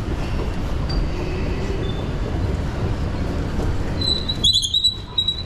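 Busy railway station concourse ambience heard from a moving escalator: a steady low rumble, with a brief thin, high-pitched squeal about four seconds in.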